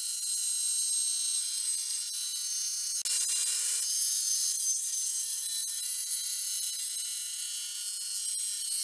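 Table saw running with a steady high-pitched whine while its blade cuts through a thick maple block fed on edge, with a louder burst of cutting about three seconds in. It is a hard, smoking cut for a table saw blade.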